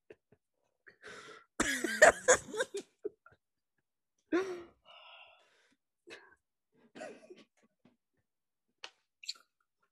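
Two men's stifled laughter and exasperated sighs in short bursts, the loudest about two seconds in.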